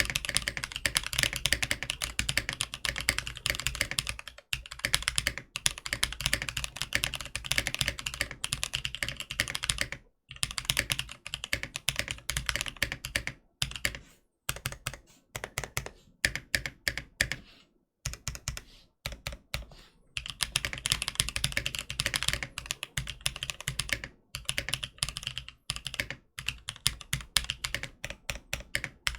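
Typing on a Tofu 65 mechanical keyboard with prototype Gazzew Boba Linear Thock switches, in an acrylic case with an O-ring-mounted PCB, a polycarbonate plate and no case foam. It is a rapid, continuous stream of keystrokes with a few short pauses.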